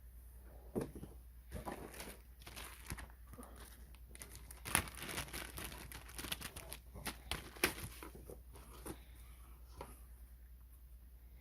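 Packaging being handled during an unboxing: irregular crinkling and rustling of wrapping and box material, with a few sharper crackles in the middle stretch.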